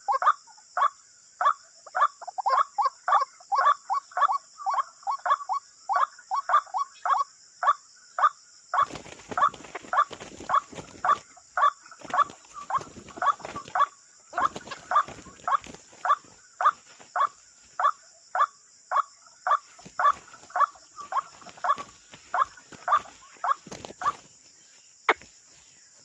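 White-breasted waterhen (ruak-ruak) calling: a short croaking note repeated evenly, two to three times a second, over a steady high insect buzz. From about nine seconds in, rustling and crunching noises join the calls.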